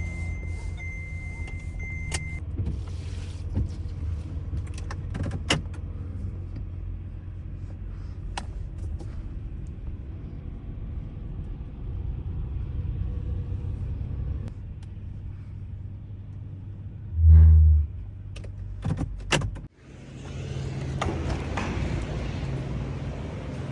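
Activity in a parked minivan: a steady low hum under a high steady beep that stops about two seconds in, then scattered clicks and rattles like keys and fittings being handled. A heavy low thump comes a little over two-thirds of the way through. After a brief drop-out, a broader outdoor hiss follows.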